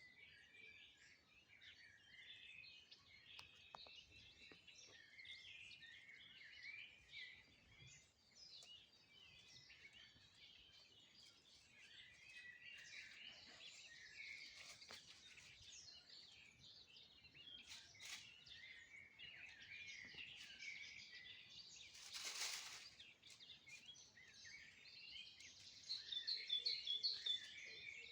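Many small birds chirping together in a dense, continuous chorus of overlapping short calls, faint overall and growing louder near the end. About three-quarters of the way through there is a brief burst of noise lasting about half a second.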